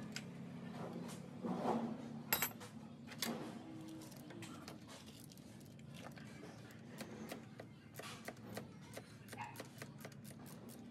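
Hand tools clicking and clinking on metal as a wrench works the alternator mounting bolts, with a quicker run of small ratcheting clicks in the last few seconds.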